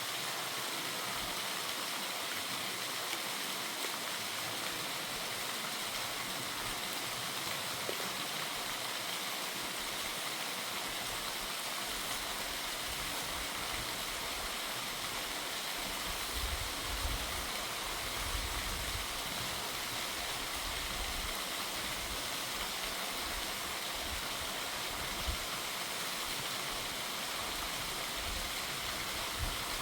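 Waterfall water rushing in a steady, even roar of white noise. From about halfway on, low rumbling bumps come and go beneath it.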